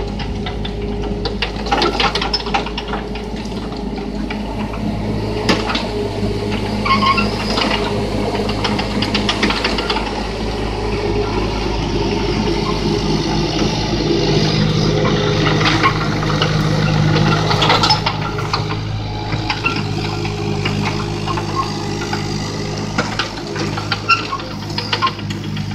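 Yanmar ViO20 mini excavator working: its diesel engine runs steadily under hydraulic load while the machine swings, with scattered knocks and clanks from the machine. The engine note is heaviest around the middle.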